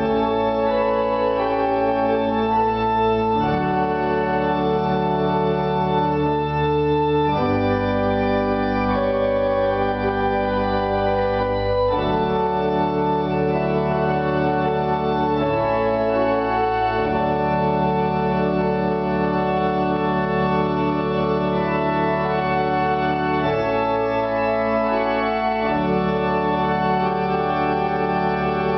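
Church pipe organ built by the Močnik organ workshop, playing sustained chords on the manuals over held pedal bass notes that change every few seconds.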